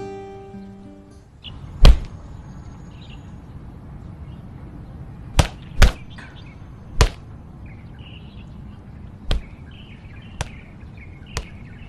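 About seven sharp swishes and snaps of punches and kicks in kung fu practice, irregularly spaced, the loudest about two seconds in. Birds chirp throughout, and soft guitar music fades out in the first second.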